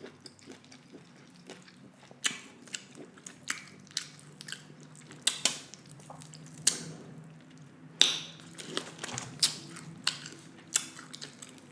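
Close-miked chewing and wet mouth smacks of someone eating, with irregular sharp clicks scattered through, the loudest about eight seconds in.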